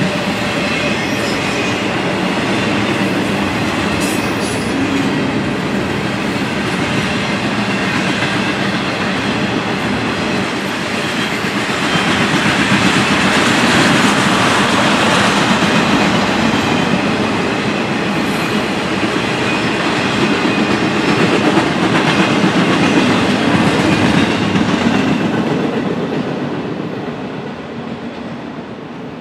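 CSX intermodal freight train's cars, trailers on flatcars and double-stack containers, rolling past with a steady rumble of wheels on rail. It grows louder about twelve seconds in, then fades near the end as the last cars go by.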